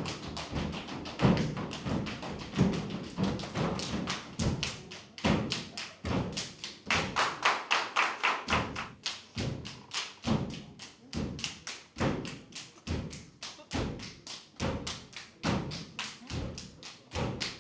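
Dancers stamping and slapping in a fast Schuhplattler-style folk dance: a steady run of thumps and sharp slaps, about four a second.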